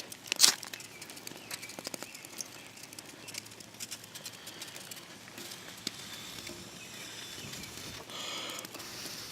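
Ferro rod struck to throw sparks onto tinder: one sharp scrape about half a second in and a longer, softer scrape near the end. Light scattered ticking of rain runs underneath.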